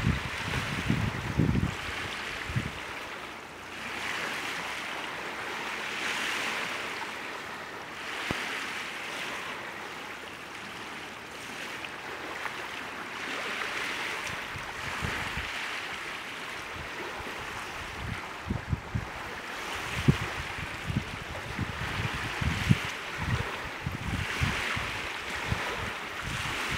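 Small waves lapping on the shore, a hiss that swells and fades every few seconds. Low gusts of wind buffet the microphone at the start and on and off through the second half.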